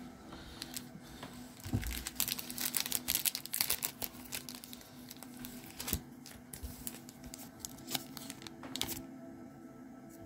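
Trading cards and a foil pack wrapper handled on a table: a run of quick clicks, rustles and crinkles, busiest from about two to four seconds in and sparser after.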